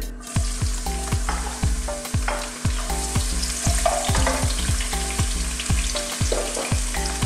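Chopped red onions tipped into about a centimetre of hot oil in a pan, sizzling as they start to fry. The sizzle starts about a third of a second in and then keeps up steadily.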